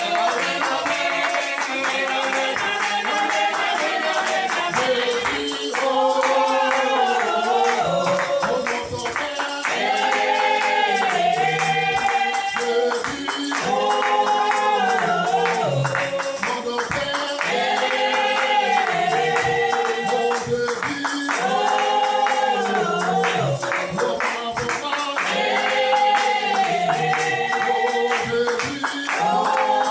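Worship singing: voices sing repeated phrases together over a steady rhythm, with tambourine and hand clapping.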